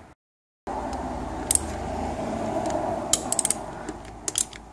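A ratchet wrench with a T45 Torx socket turning the seized alloy filler plug of a 5L40E automatic transmission: a steady grating ratchet noise that starts about half a second in and fades toward the end, with several sharp metallic clicks. This is the plug being broken loose.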